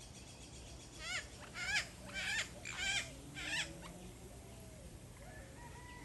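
Cayman parrots (Cuban amazons) calling: a run of five short squawks about half a second apart, then a faint thin whistle near the end.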